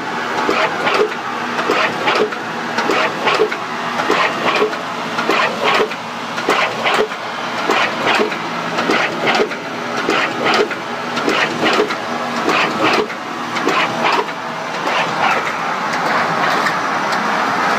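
Industrial plastics-processing machine running, a steady mechanical noise with a repeated, irregular clatter of knocks.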